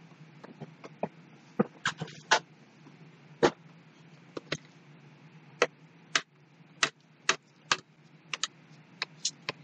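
Irregular sharp clicks and light knocks, about fifteen in all, from craft supplies being handled and set down on a tabletop cutting mat, over a faint steady hum.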